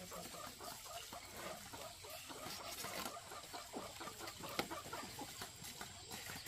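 Several chickens clucking, with short calls overlapping throughout. There is a single sharp knock about four and a half seconds in.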